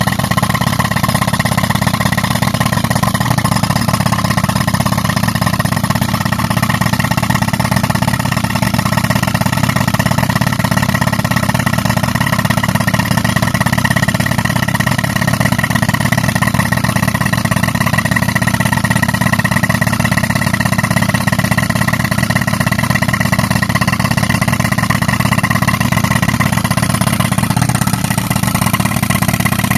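Tractor-driven air compressor running under load while a pneumatic rock breaker hammers rapidly and steadily against rock.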